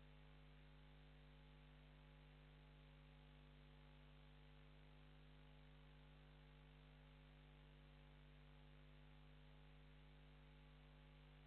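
Near silence: a faint, steady electrical mains hum with low hiss, unchanging throughout.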